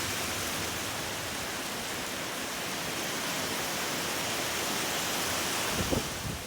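Steady hiss of typhoon rain and wind. Near the end, low gusts of wind begin buffeting the microphone.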